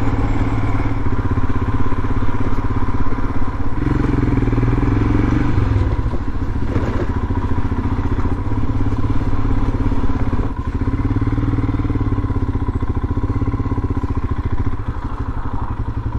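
A Royal Enfield Himalayan motorcycle's 411 cc single-cylinder engine running under way as the bike is ridden. It pulls harder about four seconds in, then eases off briefly twice later.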